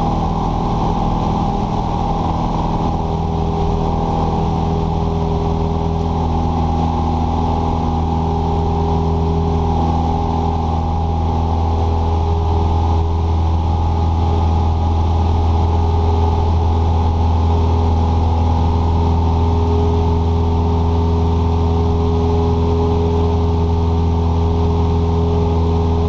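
Cessna 172S's four-cylinder Lycoming engine and propeller droning steadily inside the cabin in flight, a low, even hum with a few steady tones over it that grows a little stronger a few seconds in.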